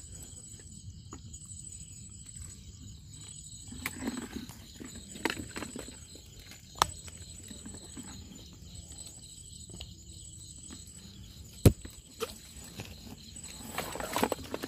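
Night insects, crickets, chirring steadily in a high, even tone, with scattered footsteps and knocks from someone moving through the mangrove. A single sharp click a little past the middle is the loudest sound.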